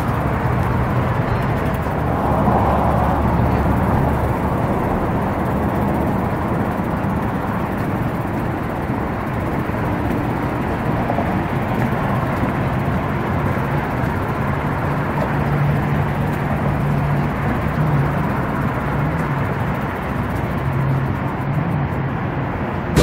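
Steady road-traffic noise, a continuous rumble with a faint engine hum that rises a little in the second half.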